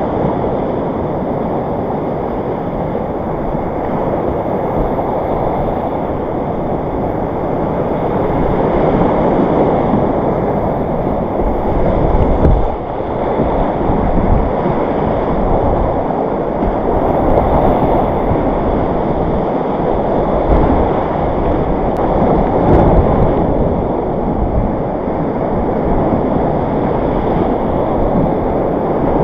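Whitewater rapids of a mountain creek rushing loudly and steadily around a kayak running class 3 water.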